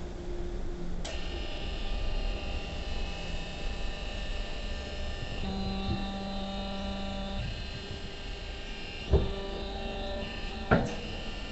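Hydraulic power pack of a cup sambarani press, its electric motor and pump running with a steady whine that starts about a second in, the tone shifting for a couple of seconds midway. Two sharp clunks come near the end, about a second and a half apart.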